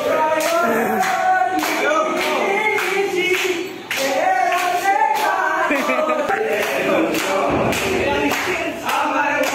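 A group of young men singing together in a loud, ragged chorus while clapping their hands to a steady beat, about two claps a second.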